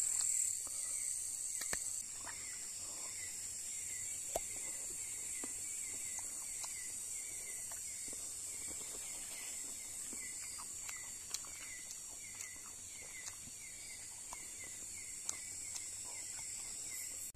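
Night insect chorus: a steady high buzzing hiss, with a short falling chirp repeated two or three times a second from about two seconds in, and a few faint clicks.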